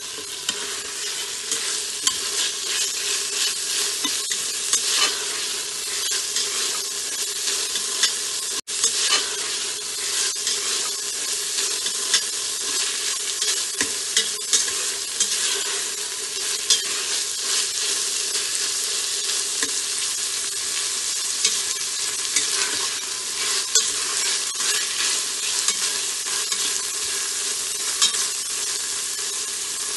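Mixed vegetables and egg sizzling steadily in hot oil in an Instant Pot's stainless-steel inner pot on sauté, with a spatula stirring and scraping against the steel in frequent short strokes.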